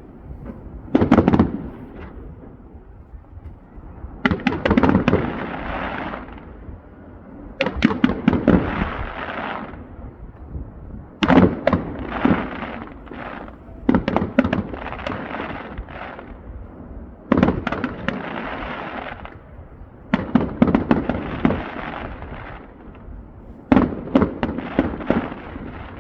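Fireworks display: aerial shells bursting in about eight salvos, roughly every three seconds. Each salvo is a cluster of sharp bangs that dies away.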